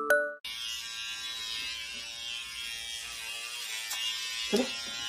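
Small battery-powered razor buzzing steadily, held up to a dog's paw, with a brief higher sound about four and a half seconds in.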